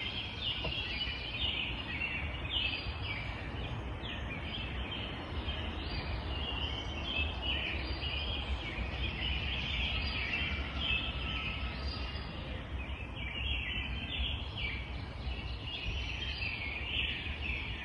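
Birds calling, many short chirping calls repeating one after another, over a steady low rumble.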